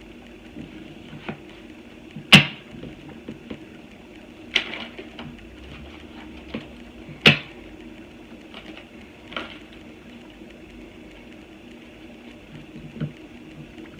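Tarot cards handled on a table: scattered sharp card snaps and taps, the loudest about two seconds in, over a steady low hum.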